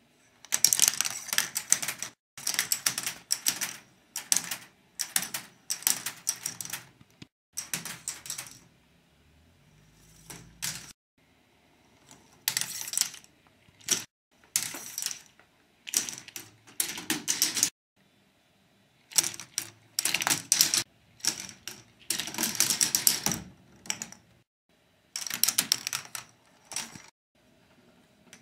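Plastic balls rattling and clattering through a K'nex ball machine's track paths: repeated bursts of rapid clicking, each about a second long, with short gaps between.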